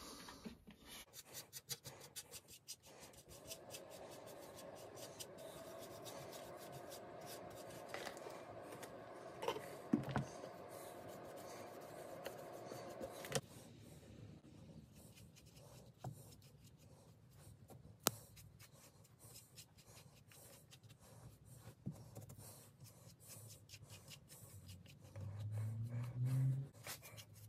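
Paintbrush stroking and dabbing paint onto a wooden clock case: a soft scratchy rubbing with many small ticks. A steady hum runs through the first half and stops suddenly about halfway, and a brief louder rustle comes near the end.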